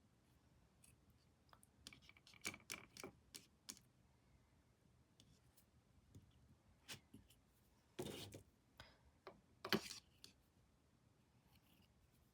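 Near silence broken by scattered light clicks and taps: a quick cluster about two to four seconds in, then a few more, louder ones around eight to ten seconds in.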